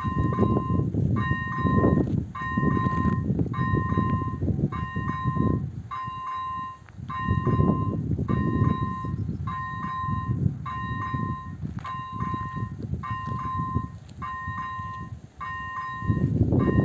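Electronic warning bell of an AŽD 97 railway level crossing ringing in a steady repeating rhythm while its red lights flash, signalling that a train is approaching. Wind rumbles on the microphone underneath, rising and falling.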